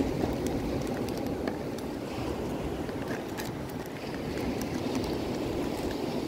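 Steady rush of surf and wind, with the crinkle of a plastic bag being handled as bait fish is unwrapped by hand.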